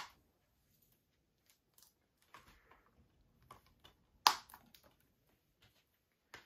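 Handling of a plastic Blu-ray case: scattered light clicks and rustles, a sharp click at the start, and a louder sharp snap about four seconds in.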